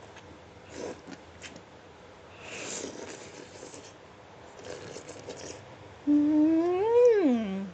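Soft eating noises with a few small clicks, then about six seconds in a loud hummed "mmm" from the eater that rises and then falls in pitch over about a second and a half.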